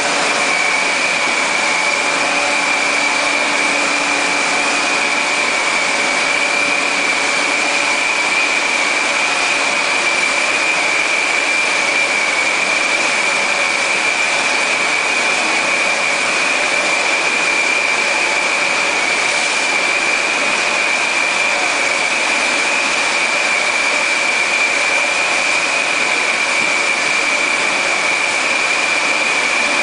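A 6-litre PET bottle filling line running: steady mechanical noise from its conveyors and machines, with a constant high-pitched whine over it.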